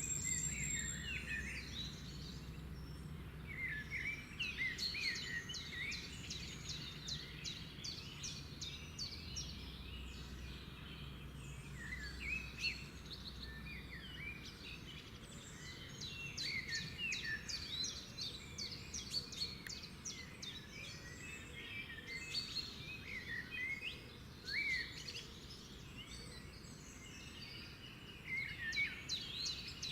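Several wild birds singing together in overlapping phrases of quick, high chirps and trills, with a low rumble underneath that fades out about halfway through.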